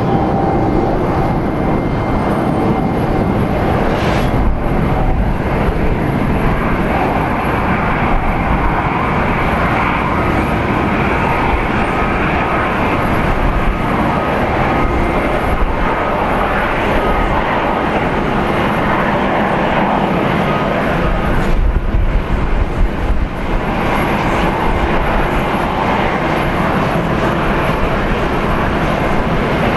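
Jet roar from a departing Japan Airlines Boeing 777-200's twin turbofan engines at climb thrust, a steady, loud rush that wavers briefly about two-thirds of the way through.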